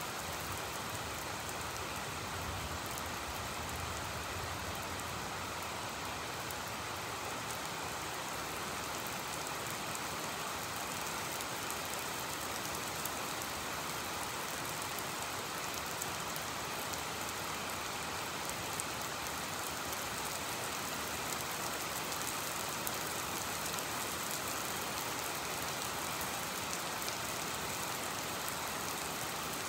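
Heavy rain falling steadily, an even hiss, with a faint low rumble during the first several seconds.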